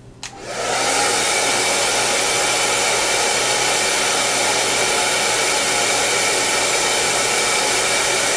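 Handheld hair dryer switched on with a click, spinning up within about a second to a steady rush of air with a faint whine in it, drying the roots of hair wound on a round brush.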